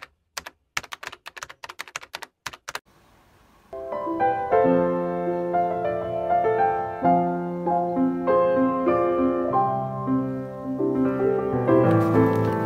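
A quick, irregular run of computer-keyboard typing clicks, then gentle piano background music starting about four seconds in and carrying on.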